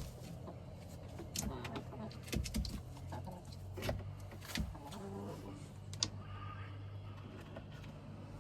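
Clicks, knocks and rustling from handling nesting material and eggs in a hen's nest box, over a steady low hum.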